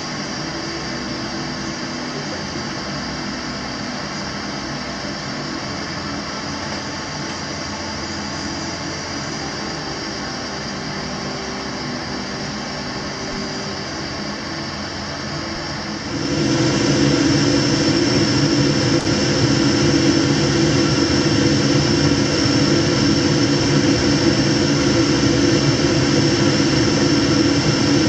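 Gas burner running steadily under a beaker, a continuous rushing noise that becomes abruptly louder and fuller about sixteen seconds in.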